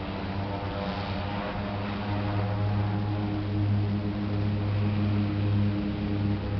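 Seaplane's propeller engine droning steadily, a low even hum that grows gradually louder as the floatplane runs across the water on its floats.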